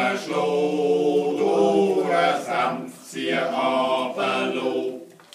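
A small group singing a Schnitzelbank verse together in Swiss German, in phrases with held notes. There is a short break about three seconds in, and the singing ends shortly before the close.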